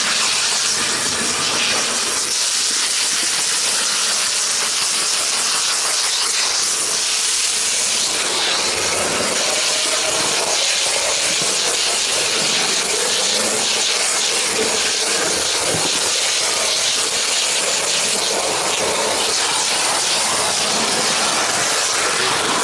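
Steady hissing running noise of a model train rolling along its track, picked up by a camera riding on board a wagon.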